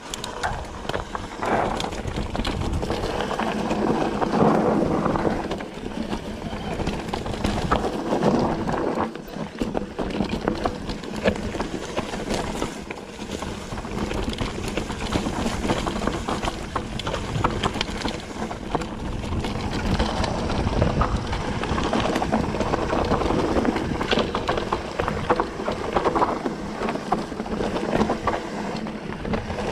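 Wind buffeting the microphone over a steady rush of tyre noise and rapid clicking and rattling from a mountain bike descending a rough dirt trail.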